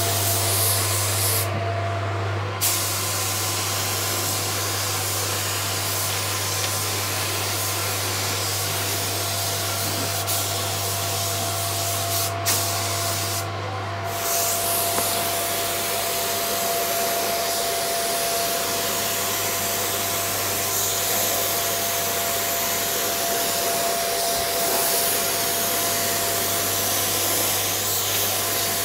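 Compressed-air spray gun spraying 2K lacquer: a steady hiss of air and atomised lacquer that stops briefly twice as the trigger is let off. A steady low hum runs underneath.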